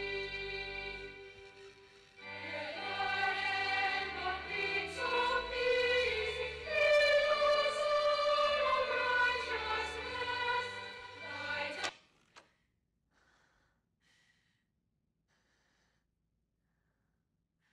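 Horror-film score: a choir singing over low held notes, fading briefly and swelling back, then cutting off abruptly about twelve seconds in. After that comes near silence with a few faint soft sounds.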